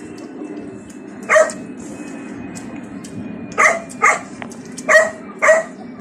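A dog barking five times in short, sharp barks: one about a second in, then four in quick succession near the end.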